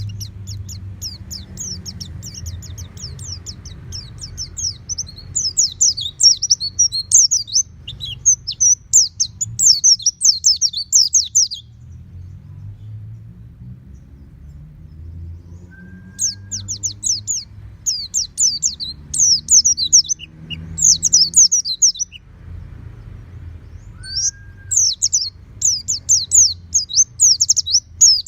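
A white-eye (pleci) singing in rapid, high-pitched twittering runs. There are three long bouts with pauses of a few seconds between them, and a short lower note just before the second and third bouts, all over a low steady hum.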